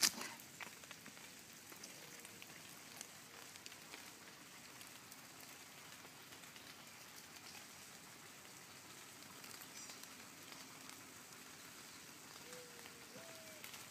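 Faint, steady patter of light rain on wet pavement and leaves, with a sharp click at the very start.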